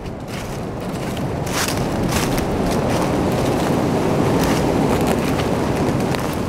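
Footsteps crunching through dry leaf litter over a steady rushing noise that builds over the first couple of seconds and then holds.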